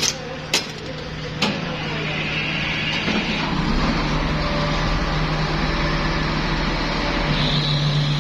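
Compressor with a steady hum; two sharp clicks about half a second and a second and a half in, then a rushing mechanical noise that builds and holds steady, with a high steady tone joining near the end. The owner suspects a gas problem is keeping the compressor from starting.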